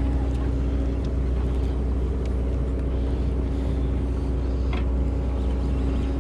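Sportfishing boat's engine machinery running with a steady low drone and a constant hum, even and unchanging throughout.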